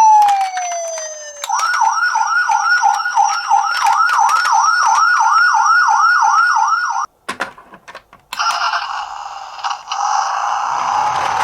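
Toy police car's electronic siren: a slow falling wail, then a fast yelp of rising sweeps about three or four times a second. About seven seconds in it cuts off for a moment with a few clicks, then comes back as a rougher, noisier siren sound.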